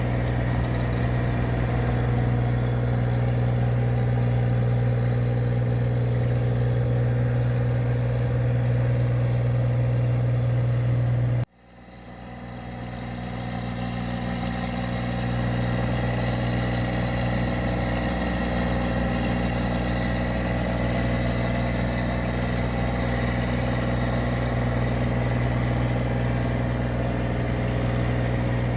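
Engine of a rice paddy machine running steadily with a strong low hum. About eleven seconds in, the sound cuts out abruptly, then fades back up over a few seconds.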